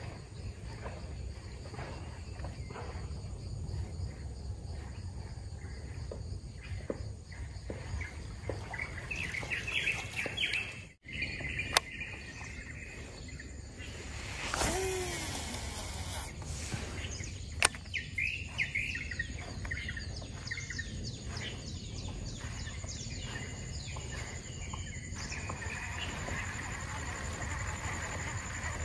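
Birds chirping and calling over a steady low outdoor rumble, with two sharp clicks about twelve and eighteen seconds in.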